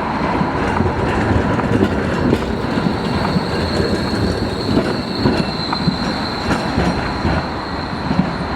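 Tatra KT4D tram double unit running past, its wheels rumbling and clattering over the rails with irregular knocks, and a steady high-pitched wheel squeal over the top.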